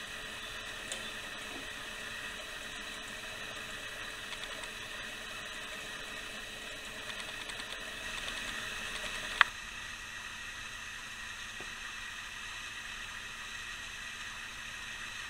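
Antique clockwork roasting jack running, its brass gear train turning with a steady whirring. A sharp click about nine seconds in, after which the sound is duller.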